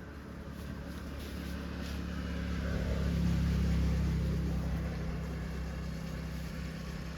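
A motor vehicle passing by: a low engine hum swells to its loudest about three and a half seconds in, then fades away.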